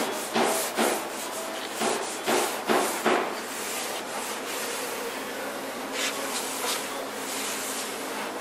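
A maroon abrasive pad rubbed by hand over the painted steel inner panel of a car trunk lid, scuffing it. There are brisk scraping strokes about twice a second for the first three seconds, then a lighter, steadier rubbing with a couple more strokes later on.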